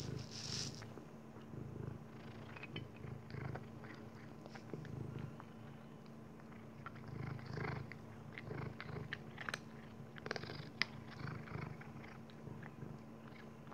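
Maine Coon cat purring in slow swells while eating, with scattered short crisp crunches and clicks as it chews dry kibble from a stainless steel bowl.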